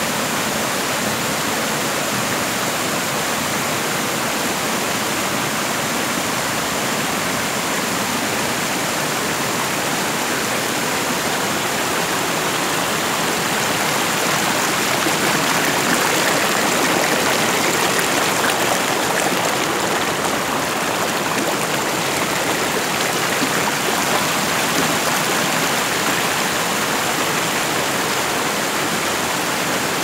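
Stream water rushing and splashing over rock ledges and a small waterfall: a steady, dense rushing noise that grows a little louder midway through.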